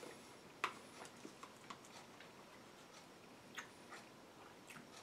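Quiet, irregular small clicks and ticks of a person eating at a table, the sharpest about two-thirds of a second in.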